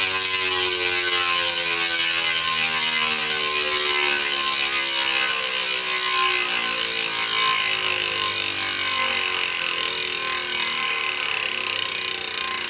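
SPEEDONE Sniper 2025 rear hub's freehub ratcheting as the rear wheel coasts, a fast continuous buzz of pawl clicks. Its pitch slowly falls as the wheel slows down.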